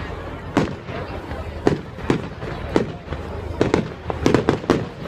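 Fireworks exploding: a string of sharp bangs at irregular intervals, coming in a quicker cluster in the second half.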